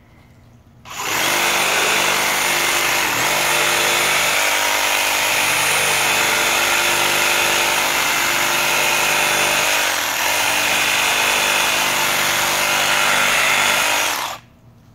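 Cordless DeWalt reciprocating saw cutting through a small log: the motor starts about a second in and runs steadily at full speed with the blade rasping through the wood, dipping briefly twice under load, then stops just before the end.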